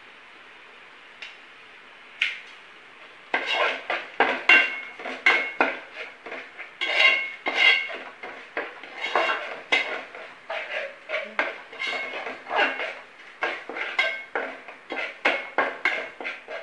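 Long-handled steel spoon scraping and clinking against a metal pot while stirring thick tomato masala, in quick repeated strokes that set the pot ringing. After two light taps, the stirring starts about three seconds in.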